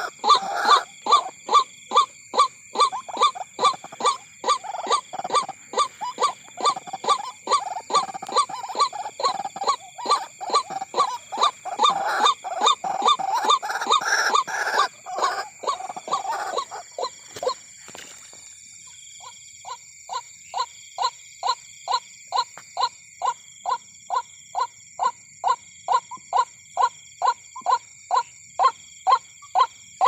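White-breasted waterhens calling: a long run of repeated short 'ruak' notes. The notes come thick and overlapping for the first half, break off about seventeen seconds in, then resume as an evenly spaced series of about two a second that grows louder toward the end.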